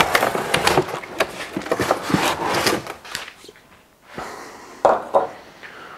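Large cardboard packing box being opened by hand: flaps scraped, bent and folded back with rustling, scraping and light knocks for about three seconds, then a short lull and a few more brief handling sounds.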